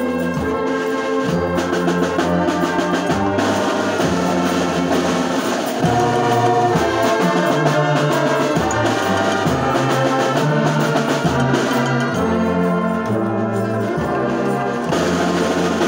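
Large brass band playing, with tubas carrying a low bass line that steps from note to note under trumpets and other brass.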